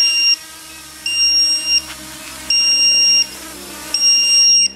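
Low-battery warning alarm beeping: a high, steady beep about 0.7 s long, repeated four times about a second and a half apart, stopping near the end. It signals that the LiPo flight battery is run down.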